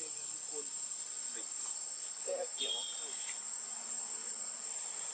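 Steady, high-pitched, unbroken drone of insects calling in the trees, with a few faint short chirps about halfway through.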